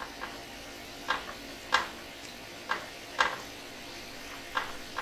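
Cooking chopsticks clicking lightly against a frying pan as cooked chicken pieces are lifted out, about six short taps spread over a few seconds, over the faint steady hiss of water at a low boil.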